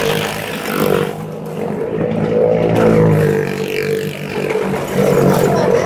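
Stunt vehicle engines, a motorcycle among them, running as they circle the wall of a wooden motordrome ('wall of death'). The sound swells and dips every second or two as they pass.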